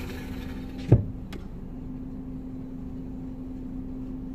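Steady hum of a parked car running, heard from inside the cabin, with one sharp thump about a second in and a faint click just after.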